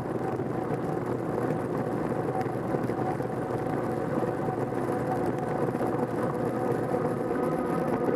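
Bicycle rolling along a tarmac path: steady tyre noise with a constant hum.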